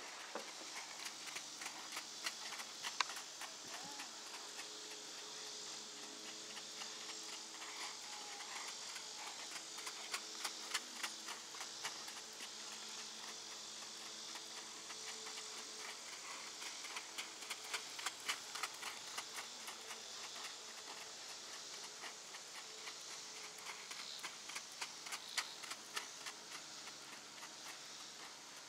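Paso Fino filly's hooves striking gravel footing as she moves on the lunge line: a quick, irregular patter of light clicks, over a steady high insect drone.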